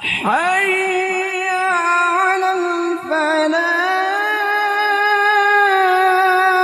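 Adzan, the Islamic call to prayer: a muezzin's voice starts suddenly and holds a long, slowly wavering melismatic note, with a short dip about three seconds in before the chant carries on.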